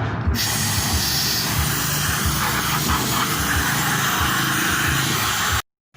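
Steady road traffic noise, a low rumble with hiss, cutting out briefly near the end.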